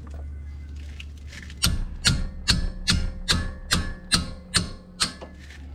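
Socket ratchet clicking in a steady rhythm, about nine clicks at roughly two and a half a second, starting between one and two seconds in: a 12 mm front brake caliper bolt being run out.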